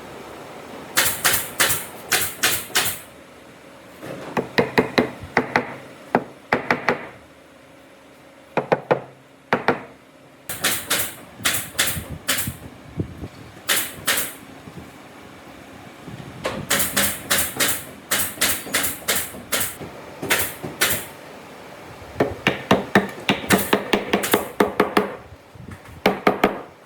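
A hammer striking in quick bursts of several blows, with short pauses between bursts; some bursts are sharper and brighter than others.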